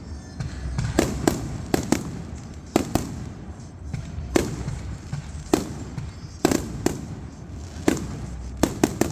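Fireworks going off: a dozen or more sharp bangs at uneven intervals, over a steady low rumble of further bursts.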